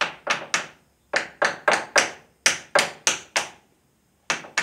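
Hammer blows on steel at the swing-cylinder pin of a Case 580D backhoe, driving the pin's retaining plate back. There are three quick strikes, then a run of about ten at roughly three a second, then two more near the end, each ringing briefly.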